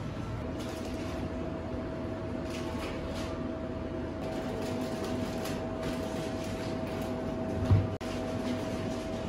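Shop room tone: a steady mechanical hum with a constant mid-pitched whine, like ventilation or refrigeration running, with faint scattered clatter and a single low thump near the end.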